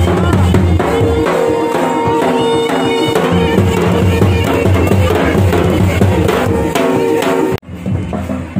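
Indian folk music with drums and a held melody line, cutting off suddenly near the end.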